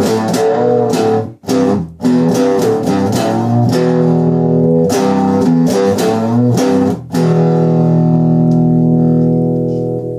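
Electric guitar played through a homemade 9-volt, LM386-based practice amp, giving distorted chords broken by a few short stops, then one chord left ringing for about three seconds.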